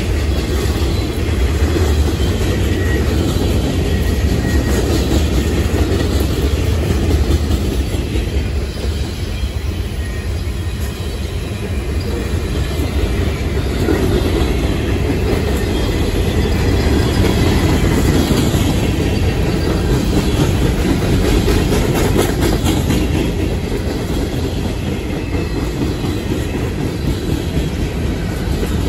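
Boxcars of a CSX local freight train rolling past at close range: a steady rumble of steel wheels on rail with clacking over the rail joints.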